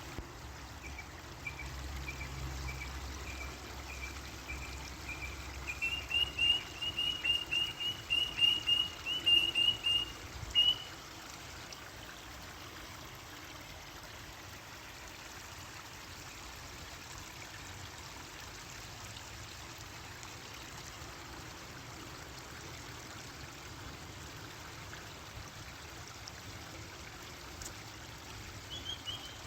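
A bird calling in a rapid series of short, high chirps, about three a second, that grow louder about six seconds in and stop at about ten seconds. Under it is a steady hiss of trickling water, which is all that is heard for most of the rest, until the chirping starts again near the end.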